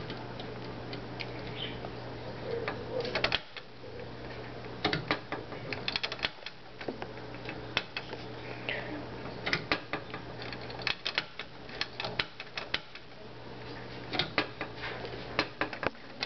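Pet bird pecking and biting at a hard object: irregular sharp clicks and taps, often in quick clusters, with a faint short chirp now and then.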